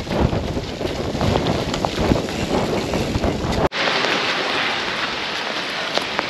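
Wind buffeting the microphone of a camera riding on a mountain bike, over the rumble and rattle of tyres on a muddy dirt track. A little over halfway through it cuts abruptly to a steady hiss of rain and bike tyres running through wet mud.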